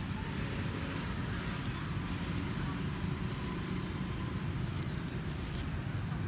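Steady low background rumble without distinct events.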